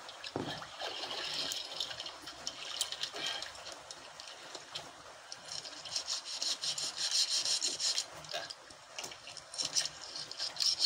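Sea water lapping and splashing against the hull of a small outrigger boat: an uneven hiss with scattered small clicks, louder over the last few seconds.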